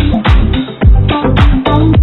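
Upbeat electronic dance music with a thumping kick drum about four beats a second and a bass line.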